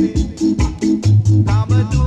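Reggae music: a deep, repeating bass line under a steady beat of evenly spaced percussion hits, about four a second.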